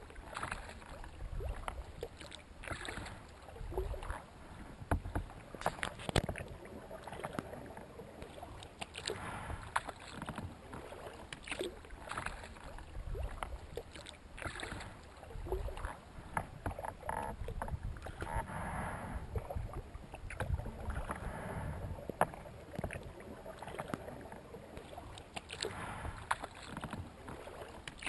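Kayak paddling: paddle blades splashing and water sloshing along the hull of a sea kayak, heard close from the bow deck. It comes in uneven swells every second or two, with scattered small clicks and drips.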